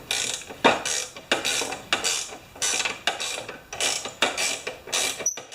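3/4 inch SAE ratchet wrench being worked on a bolt, its pawl clicking in repeated strokes about one and a half a second, as the bolt is tried to see whether it will tighten.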